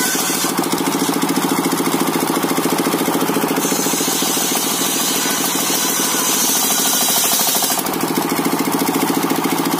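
The engine of a circular-saw sawmill machine running steadily with a fast, even pulse. A high hiss comes in for a few seconds in the middle.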